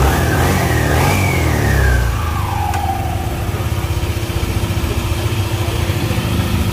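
Yamaha Aerox 155 scooter's single-cylinder engine running on the stand with the rear wheel spinning, on a newly fitted Pitsbike 15T primary drive gear. It is revved in the first couple of seconds, the pitch falling away by about three seconds in, then it settles to a steady idle.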